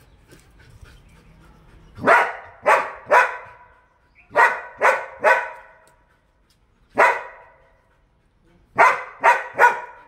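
German Shepherd dog barking in short bursts: three barks, then three more, a single bark, and a final run of three.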